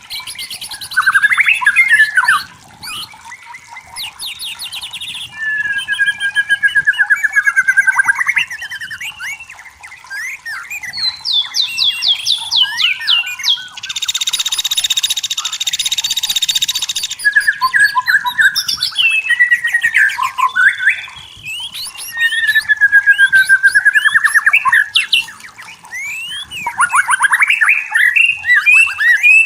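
White-rumped shama singing: a varied run of slurred whistles, rapid trills and fast chattering phrases, with a harsh rasping note lasting about three seconds near the middle.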